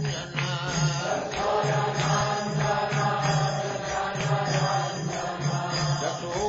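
Hindu devotional chant (bhajan) sung over instrumental accompaniment, with a steady pulsing beat about twice a second.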